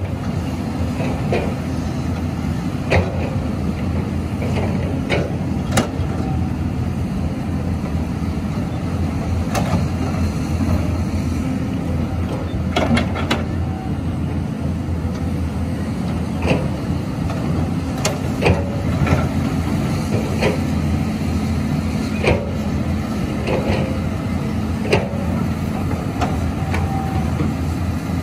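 Caterpillar 320C excavator's six-cylinder diesel engine running steadily while it digs, with short sharp knocks and clanks every second or so.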